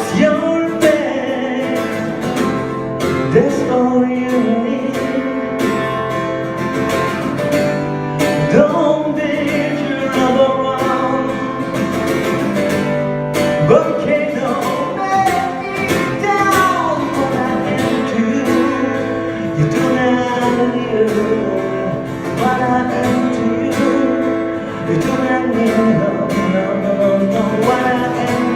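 Acoustic guitar strummed and picked steadily, with a voice singing over it.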